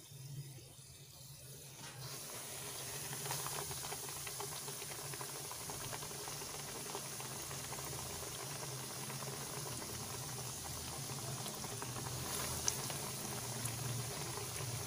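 Flour-coated chicken pieces deep-frying in hot oil: a steady sizzling hiss that starts about two seconds in as the pieces go into the oil.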